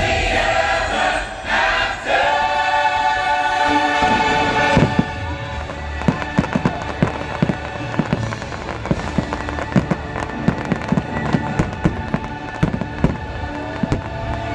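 Orchestral and choral music holds a final sustained chord, and about five seconds in a rapid barrage of fireworks takes over: many sharp bangs and crackles, several a second, with fainter music underneath.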